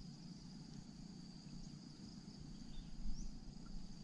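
Open-air field ambience: insects trilling steadily at a high pitch, a few faint bird chirps, and a low rumble with a brief bump about three seconds in.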